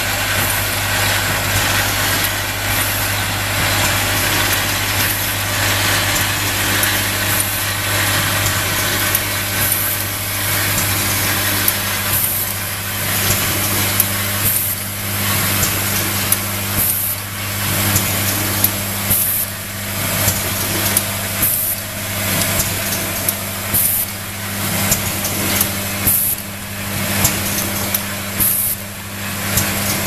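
Automatic XLR connector assembly machine running: a steady low hum from the vibratory bowl feeder with plastic parts rattling in it. From about twelve seconds in, the pneumatic actuators add short hisses and clacks every second or two as the machine cycles.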